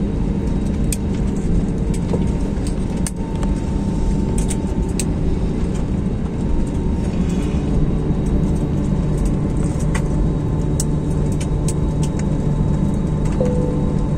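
Airliner cabin noise as the plane rolls out after landing and turns off onto a taxiway: a steady deep rumble of the jet engines and wheels on the pavement, with a steady hum and scattered light clicks and rattles.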